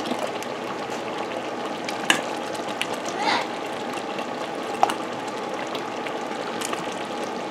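Thick cranberry sauce bubbling and sizzling steadily in a pot on a hot burner, with a couple of light clinks and a scrape of a ladle.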